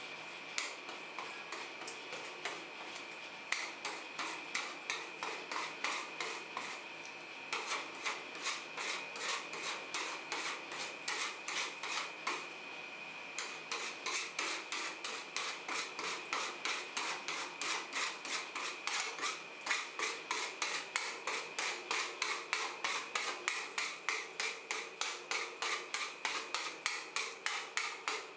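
Metal spatula scraping back and forth over a thin layer of freezing ice cream on a steel cold plate, spreading and working it for rolled ice cream. A few scattered strokes at first, then a fast steady rhythm of about three strokes a second, with a short pause partway through.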